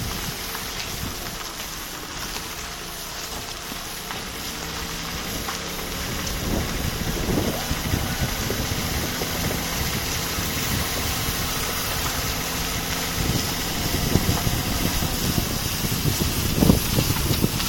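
Car engine running while the car is driven slowly, with a hiss that the owner cannot explain. From about six seconds in, irregular crackling noises grow louder over the engine hum.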